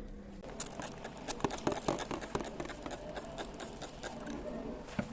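Rapid, irregular light clicks and clattering of household objects being handled during kitchen cleaning, thickest in the first half, over a faint steady hum.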